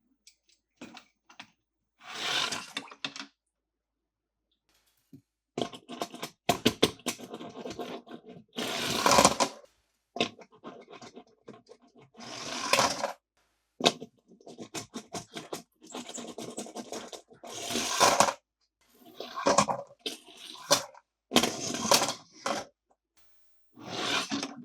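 Toy packaging being handled and opened: repeated rustling, tearing bursts about a second long, with runs of quick clicks and taps in between and short silences.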